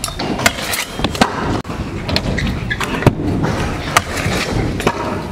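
Stunt scooter riding: the wheels roll on the ramps and the deck grinds along a metal rail, with several sharp knocks as the scooter lands and hits the rail.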